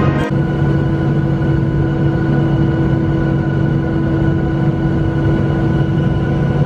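Jet engine noise heard inside a Boeing 737 airliner cabin: a loud, steady rush and rumble with a low hum and a few constant whining tones.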